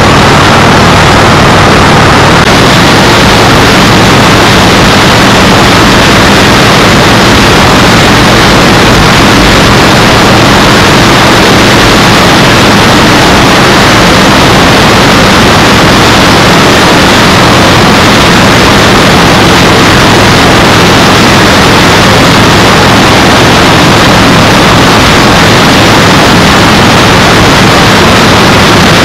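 Loud, steady wind noise rushing over an action camera's microphone while riding at speed, with a low, even engine drone underneath.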